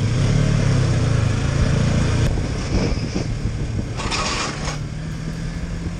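Motorcycle engine running on the road with wind noise, the engine sound dropping off about two seconds in. A short rush of hiss comes at about four seconds.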